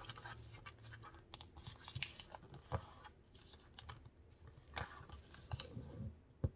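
A sheet of paper being folded by hand: faint rustling as fingers slide along it and press down a crease, with a few soft crackles and taps scattered through.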